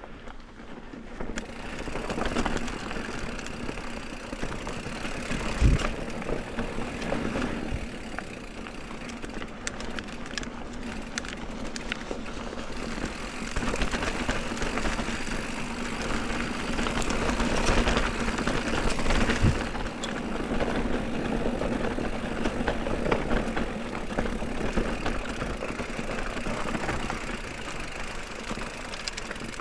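Mountain bike riding over a rough, stony track: steady rolling and rushing noise with the bike rattling, and a couple of sharp knocks.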